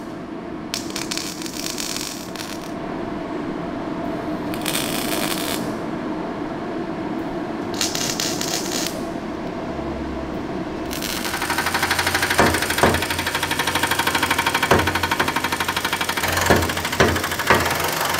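A MIG welder arcing in three short bursts of hiss as nuts are welded onto seized bolt heads. About eleven seconds in, a pneumatic impact wrench starts hammering rapidly on a welded-on nut to break the bolt loose, with a few louder knocks, over a steady background hum.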